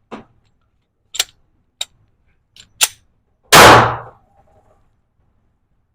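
A single loud pistol shot from a Glock handgun about three and a half seconds in, dying away over nearly a second, with several fainter sharp cracks before it.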